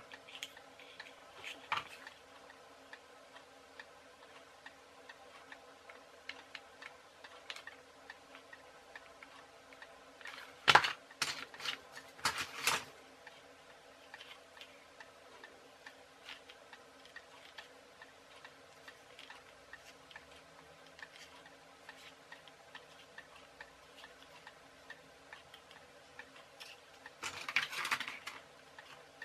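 Hands handling small plastic and cardboard wheel parts on wooden skewer axles: a few sharp clicks about eleven and thirteen seconds in, and rustling near the end. Underneath is a faint regular ticking and a low steady hum.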